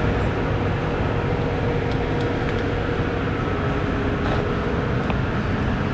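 Steady background noise of running plant-room machinery: a continuous low hum under a broad even noise, with a faint held tone and a few light clicks.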